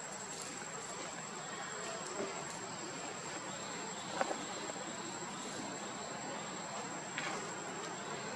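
Insects, such as crickets, buzzing steadily at one high pitch over a faint outdoor hiss, with a couple of brief faint squeaks about four and seven seconds in.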